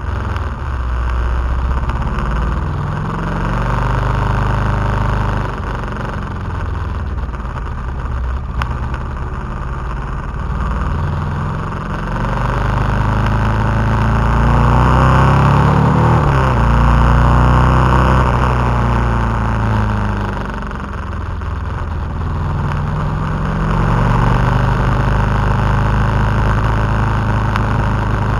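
KTM 990 SMT's V-twin engine running on the move, its pitch rising and falling as the rider accelerates and backs off. Wind rushes over the microphone and swells with speed around the middle.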